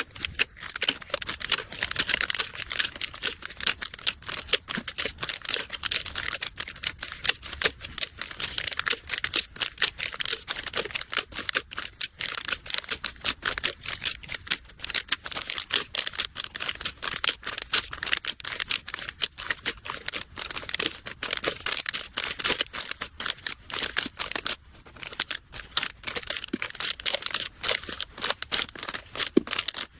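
Plastic packaging bags crinkling and rustling with quick, dense clicks as they are handled and packed, with a brief lull about 25 seconds in.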